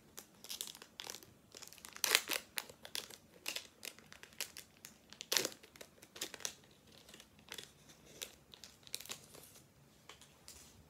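Foil Pokémon booster pack wrapper crinkling and tearing as it is opened, in irregular crackles, loudest about two seconds in and again a few seconds later.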